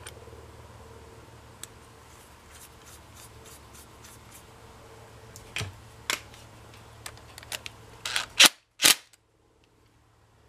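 Small metal clicks and taps as a Honda GCV160 carburetor's float bowl and bowl bolt are fitted by hand, with a few sharper clicks later on and the loudest pair near the end. The sound then cuts out suddenly.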